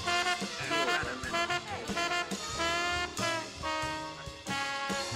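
Brassy jazz band music led by a trombone playing loud, separate notes, several of them bending or sliding in pitch.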